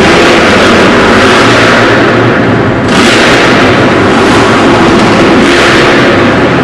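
Motocross bike engine running hard on a dirt track, loud throughout, swelling as the throttle opens about three seconds in and again later. It rings in a large enclosed hall.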